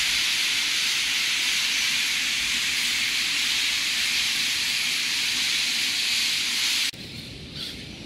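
A huge flock of small birds calling all at once as it swirls overhead, so many voices that they blend into one steady, high hiss. It cuts off suddenly near the end, leaving a much quieter background with a few scattered chirps.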